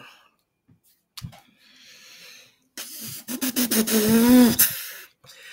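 A man's wordless vocal reaction: a short knock and a faint breath, then about three seconds in a drawn-out breathy voiced sound that wavers up and down in pitch for about two seconds, a sound of disapproval at the idea of bikes on the train.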